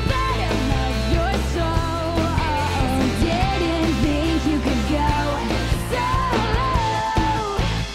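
Live pop-rock band performance: a woman singing lead over electric guitar, bass and drums.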